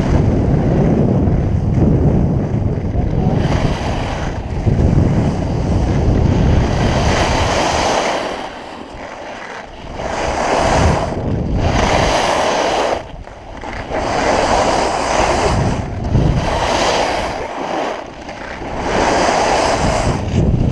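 Wind rushing over the GoPro microphone during a downhill ski run, with skis scraping over hard, granular snow in surges about every two seconds.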